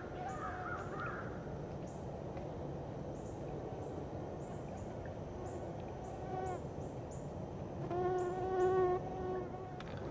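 Evening woodland ambience: insects chirping over and over, with birds calling. A warbling call comes in the first second, and a louder drawn-out animal call sounds twice near the end.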